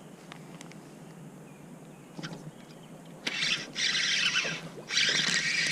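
Fishing reel being cranked, a whirring that comes in several bursts with short gaps, starting about three seconds in after a few faint clicks.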